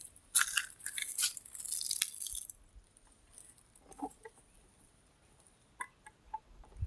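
Footsteps crunching through dry grass and leaves for about two seconds, followed by a few faint ticks.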